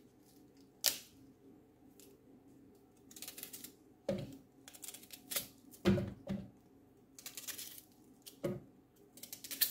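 A kitchen knife slicing through a red onion held in the hand, with the pieces dropping into a blender jar: scattered sharp taps and a few short rasping cuts.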